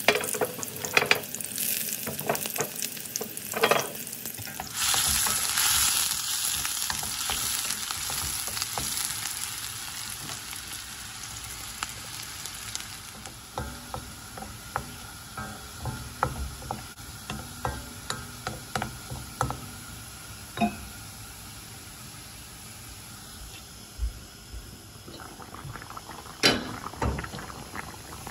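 Chopped onion and garlic frying in hot oil in a wok, sizzling steadily, with a spatula stirring and clicking against the pan. The sizzle is strongest in the first half and eases off as the onions brown, and a few louder knocks come near the end.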